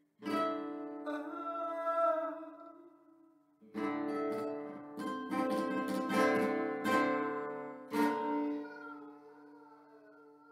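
Classical guitar strummed in chords: a chord just after the start and another ringing out, then a quick flurry of strokes about four seconds in and a final strong chord near eight seconds that rings away.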